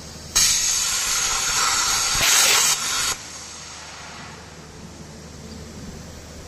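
CNC plasma cutter torch hissing in one burst of about three seconds. It starts suddenly, grows louder just before it ends, and cuts off abruptly. A low machine hum runs underneath.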